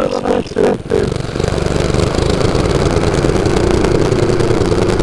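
Mini bike's Predator 212 single-cylinder engine, its note wavering unevenly with a few knocks, then settling into a steady run from about a second in.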